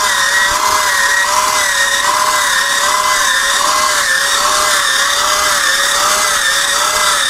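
Electric rotating potato peeler running, its small motor turning a potato against the peeling blade: a steady motor whine whose pitch wavers slightly, about twice a second.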